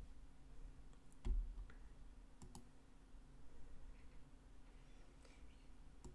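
A handful of faint, scattered clicks from working a computer, with a dull thump about a second in, over a low steady hum.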